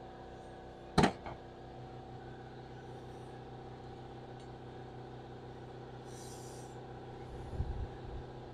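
Air compressor running steadily, refilling for the red-hosed air tool. A sharp knock comes about a second in, a short high hiss around six seconds, and a few low thumps near the end.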